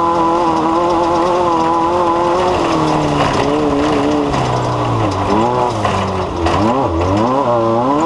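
An engine running at a steady speed, then dropping back and being revved up and down in quick repeated swings from about halfway through.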